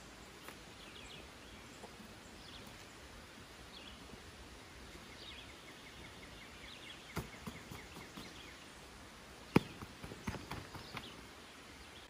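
Faint bird chirps repeating over a quiet outdoor hiss. A few clicks and knocks come in the second half, the loudest a single sharp click about nine and a half seconds in.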